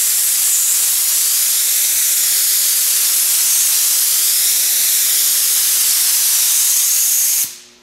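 DeVilbiss FinishLine gravity-feed spray gun atomising water-based acrylic paint: a loud, steady hiss of compressed air and paint mist that wavers slightly as the gun sweeps across the panel. It cuts off abruptly just before the end as the trigger is released. The gun is laying down another light coat, recoated straight away because the acrylic needs no flash time.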